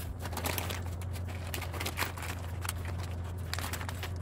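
Crinkling and rustling as a paper instruction sheet and a clear plastic bag of cabinet hardware are handled: quick, irregular rustles over a steady low hum.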